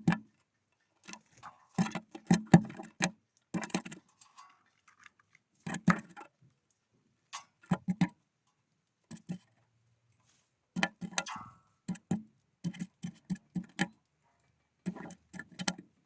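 Birds pecking and hopping on a feeder: irregular clusters of sharp taps and knocks with short silent gaps between them.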